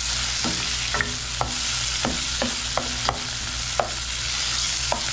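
Onion, tomato and green chile sizzling in a nonstick frying pan for a sofrito, with a steady hiss, while a spatula stirs them, giving repeated short scrapes and taps against the pan.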